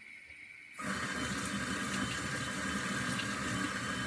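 Kitchen tap turned on suddenly about a second in and running steadily, water splashing as the egg-whisking mixer is rinsed under it.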